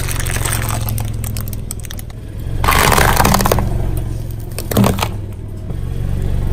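A car tyre rolls slowly over small plastic items on concrete, over a steady low engine hum. About two and a half seconds in, a second-long burst of crunching and crackling sounds as an object is crushed, and a short sharp crack follows near five seconds.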